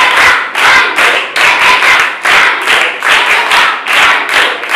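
A group of children clapping their hands together in a steady rhythm, about two to three claps a second.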